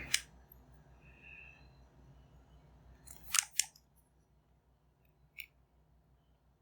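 Small sharp clicks from headphone parts being handled and fitted: one at the start, a louder pair about three and a half seconds in, and a faint tick near the end.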